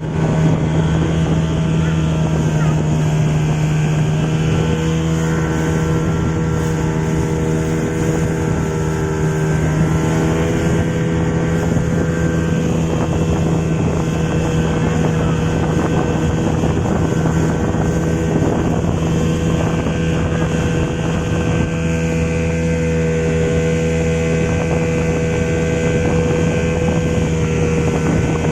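Speedboat engine running steadily at an even pitch, heard from aboard the moving boat, with rushing wind and water noise.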